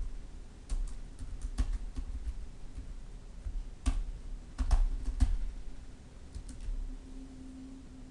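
Typing on a computer keyboard: irregular key clicks in small clusters with pauses between them.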